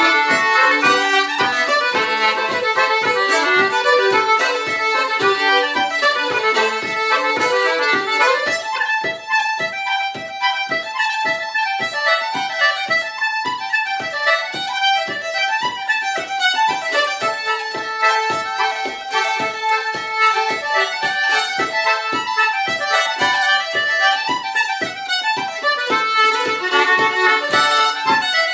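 Fiddle and concertina playing an Irish reel together at a brisk, steady tempo, a fast run of notes throughout.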